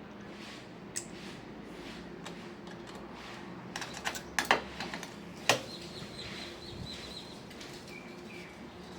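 Pliers clicking against metal wire connectors as loose ones are squeezed tight: one sharp click about a second in, then a quick run of sharp clicks between four and five and a half seconds in.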